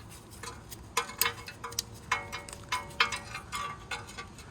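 Light metallic clicks and clinks, about a dozen irregular taps with a brief ring after some of them, from hands working small metal parts at a brake caliper and hub while the wear sensor cable is clipped in.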